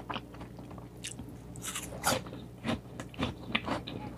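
Mouth biting and chewing a crisp, juicy slice of Korean pear, a run of irregular crunches.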